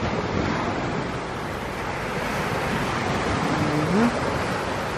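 Small waves breaking and washing up a sandy beach, a steady surf rush with wind buffeting the microphone. A brief low rising tone sounds about three and a half seconds in.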